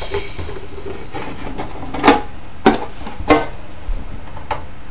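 A screwdriver and hands working on the sheet-metal bottom cover of a Soviet avionics module as it is being opened, giving four sharp clicks and knocks from about two seconds in.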